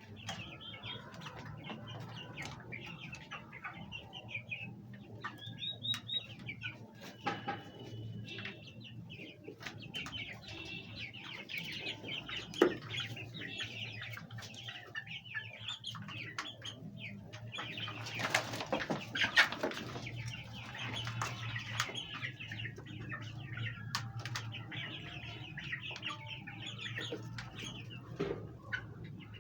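Domestic hens clucking and calling in quick, repeated notes, with a louder stretch of rustling a little past the middle and a single sharp knock before it.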